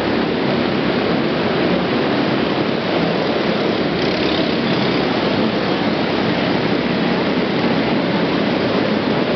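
Several trophy kart engines running hard around a dirt track, blending into one loud, steady engine noise with no single engine standing out.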